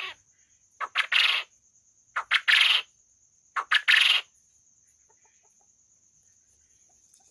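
A puyuh ropel quail calling: a call ending just at the start, then three loud, harsh two-part calls about a second and a half apart, each a short note followed by a longer one, before it falls quiet about four seconds in. A faint steady high whine runs underneath.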